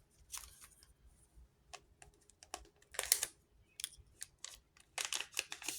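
Trading cards being handled and flipped through one by one: scattered light clicks and brief rustles of card stock, with a denser cluster near the end.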